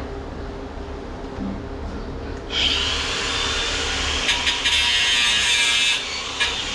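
A handheld power grinder spins up about two and a half seconds in and grinds the zinc plating off steel, a steady high-pitched grinding noise that dips briefly near the end. Before it starts there is only a low steady hum.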